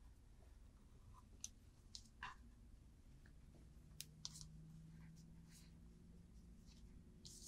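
Near silence, broken by faint scattered clicks and small scrapes of a rotary cutter being run through layered fabric around a pattern on a cutting mat.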